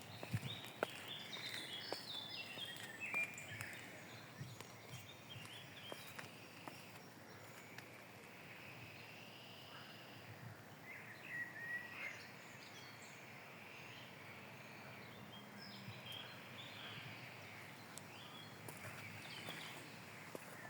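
Several songbirds singing and calling, with clusters of quick chirps near the start and again about halfway, over a faint steady hiss and a few light taps.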